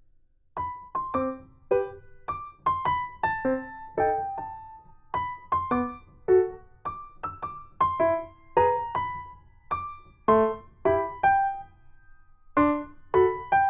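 Background piano music: a light melody of single struck notes, a couple each second, starting about half a second in, with a brief pause near the end.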